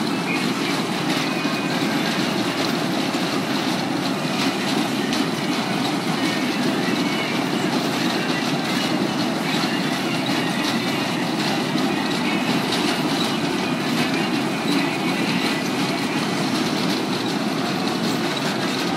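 Carnival ride running at speed: its cars rolling round the track with a steady rumble and rattle.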